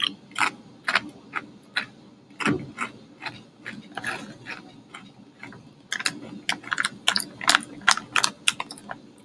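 Crunching of Lay's potato chips being chewed: a run of sharp, irregular crunches that thins out about halfway through, then comes thick and fast near the end.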